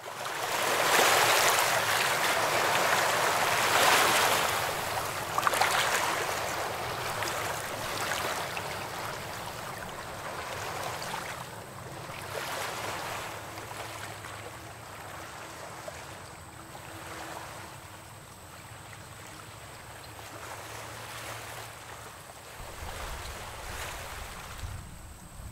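Waves washing against shoreline rocks in slow surges, loudest at first and then easing off.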